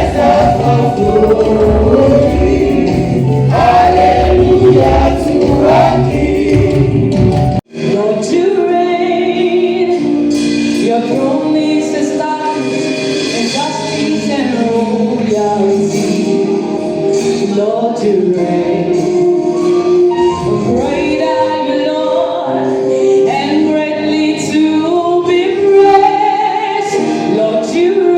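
A choir singing gospel music with instruments. About a third of the way in the sound cuts out for an instant, and it comes back thinner, with little bass.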